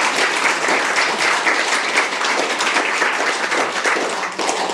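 Audience applauding steadily, a dense patter of many hands clapping that stops as speech begins.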